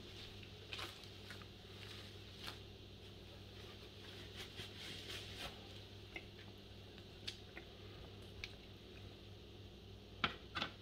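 Faint handling sounds of a roasted whole chicken being lifted off a vertical chicken roaster stand and set on a pan: scattered soft clicks and squishy noises, with two sharper knocks near the end.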